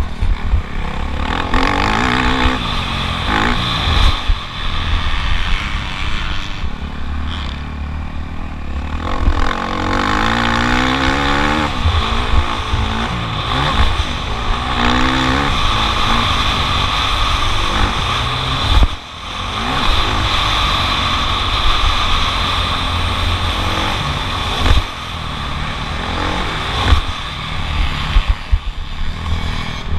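Motocross bike engine heard from the onboard camera, revving hard, rising in pitch and dropping back again and again as the rider works the throttle and shifts gears. Near the two-thirds mark the throttle shuts briefly and the engine drops away for a moment before pulling again.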